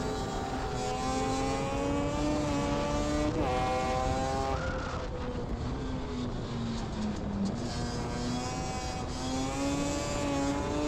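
Yamaha Banshee 350's twin-cylinder two-stroke engine under way, raw with no music: the pitch climbs steadily, blips about three and a half seconds in, then eases off and sinks for about three seconds before climbing again from about eight seconds. Wind rumble on the microphone underneath.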